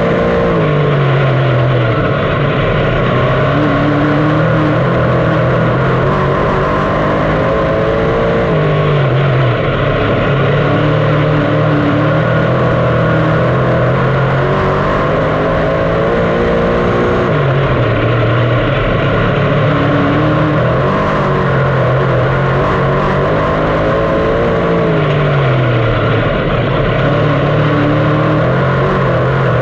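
A 358 small-block dirt modified's V8 running hard on track. The engine note drops sharply and climbs back about every eight seconds, four times in all, as the car lifts for the turns and gets back on the throttle.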